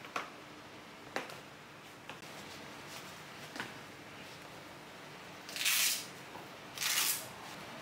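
Sandal soles tapping on a wooden floor a few times as feet shift, then two short ripping sounds of a sandal's hook-and-loop strap being pulled open about two seconds before the end.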